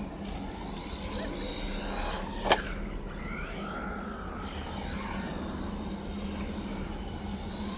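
Small RC truck's brushed 380 electric motor and 4WD drivetrain whining, the pitch rising and falling with the throttle. A single sharp knock about two and a half seconds in.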